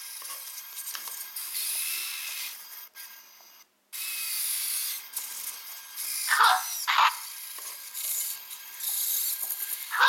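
i-SOBOT humanoid robot's small servo motors whirring and grinding as it moves its arms and legs. Two short, louder whines come in quick succession about six and a half seconds in, and another comes near the end.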